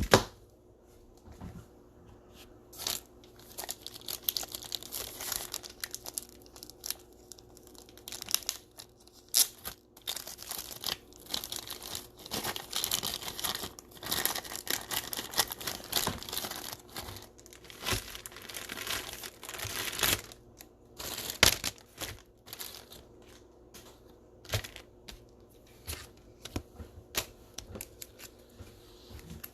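Plastic card sleeve and rigid toploader being handled to protect a trading card: crinkling, tearing-like rustles and scattered light clicks, with longer stretches of rustling about four seconds in and from about twelve to twenty seconds in.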